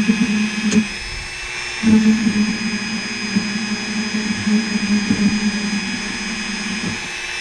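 Plug-in Dremel rotary tool running with a short length of 3 mm filament chucked in it, spun against 3D-printed plastic to melt and stir the seam together. A steady motor whine, with its low hum dropping out briefly about a second in.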